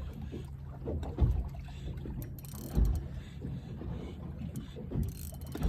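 Boat's engine running with a steady low hum, broken by three heavy low thumps.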